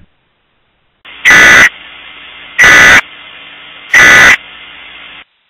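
Emergency Alert System end-of-message data tones: three short, raspy digital bursts about 1.3 seconds apart, over a faint steady hiss that cuts off a little after five seconds. They mark the end of the spoken alert.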